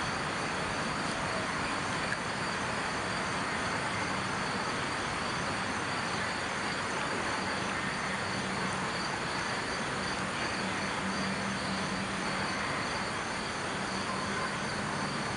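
Steady outdoor background noise: a continuous even rush with a low hum that comes and goes, and faint high insect chirring over it.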